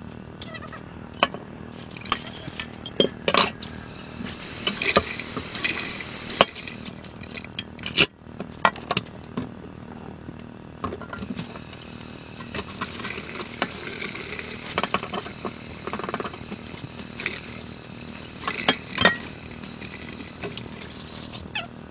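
Dishes being washed in a stainless steel kitchen sink: the tap runs in stretches while utensils and dishes clink and knock against the sink and each other.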